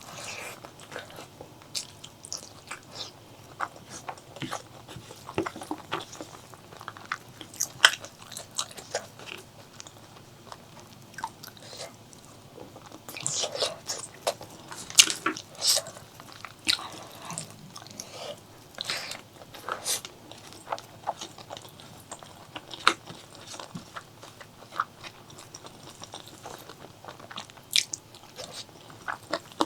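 Close-miked eating: chewing and biting of spicy pork leg curry with rice, with wet smacking and sharp crunchy clicks, some louder bites about halfway through.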